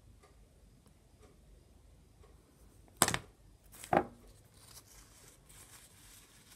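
Two sharp knocks or clicks about a second apart, the second with a brief ring, amid faint rustling.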